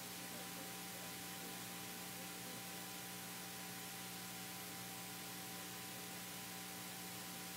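Steady electrical hum with hiss, several fixed tones held unchanged throughout, with no distinct events.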